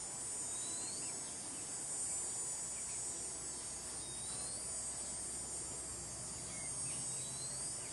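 Steady, shrill chorus of insects buzzing, with three short rising chirps over it.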